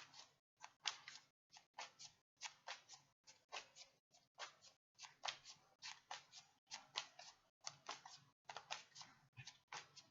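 Tarot cards being shuffled by hand: a soft, continuous run of crisp card flicks, several a second, in short clusters with brief gaps.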